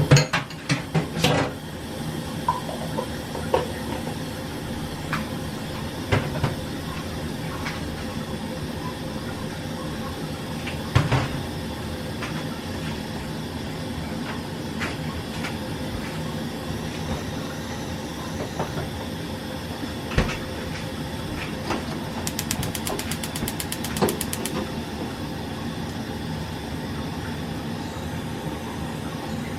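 Kitchen prep sounds: clinks and knocks of utensils and containers, loudest right at the start and then scattered, over a steady hum. A quick run of rapid ticks comes about two-thirds of the way in.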